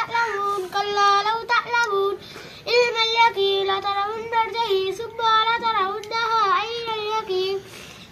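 A young girl reciting the Quran in Arabic, chanted in a melodic tajweed style with long held, wavering notes. She pauses for breath about two seconds in.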